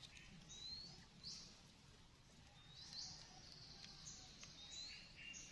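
Faint bird calls: several short rising chirps, one every second or so, over quiet outdoor ambience.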